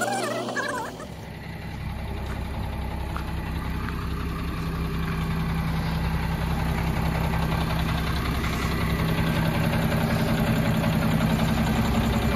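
Diesel engine of a Tata 4830 16-wheel truck chassis idling: a steady low drone that grows gradually louder.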